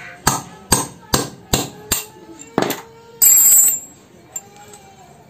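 Hammer blows on metal driving a worn valve guide out of a Honda Vario 125 cylinder head, struck in a steady series of about two to three a second. After the blows comes one louder metallic clatter lasting about half a second.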